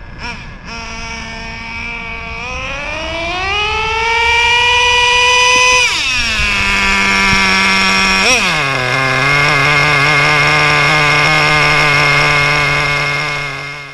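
A small motor speeding up over about two seconds, holding a high pitch, then dropping sharply about six seconds in. It blips up briefly near eight seconds, runs steadily at a lower speed, and cuts off at the very end.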